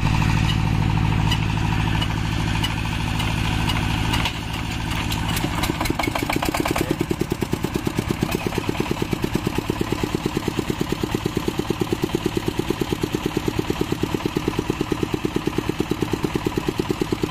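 A steady engine hum, then rapid clattering about four seconds in as a diesel generator engine is hand-cranked. It catches about seven seconds in and settles into an even, chugging idle.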